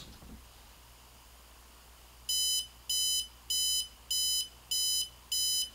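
Digital alarm clock going off: a steady run of short, high electronic beeps, about one and a half a second, starting about two seconds in.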